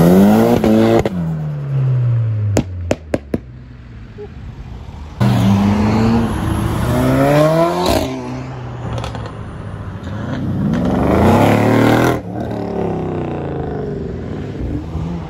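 Performance car engines revving hard as cars accelerate away one after another, each engine note climbing steeply in pitch. About three seconds in there is a short run of sharp cracks.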